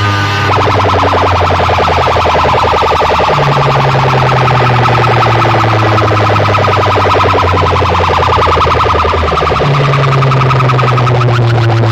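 A DJ sound-box speaker system playing a loud, fast-pulsing siren-like electronic tone over heavy bass notes that change pitch a couple of times.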